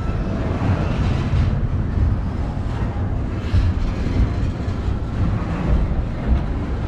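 Double-stack intermodal train's well cars rolling past close by at speed: a steady, loud low rumble of steel wheels on the rails.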